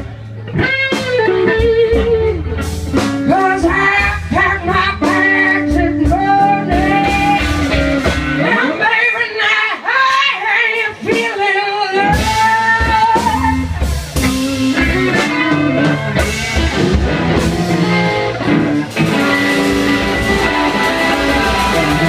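Live blues-rock band music: electric guitars playing lead lines with bent notes over the band, with singing. The bass and drums drop away for a few seconds in the middle, then come back in.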